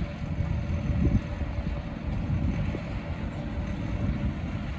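Wind buffeting the microphone in gusts over the faint, steady running of a miniature railway locomotive's diesel engine on the track.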